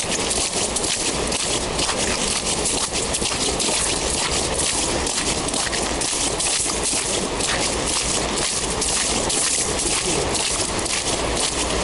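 Footsteps of a person walking on wet lake ice: steady crunching and scuffing over a constant hiss.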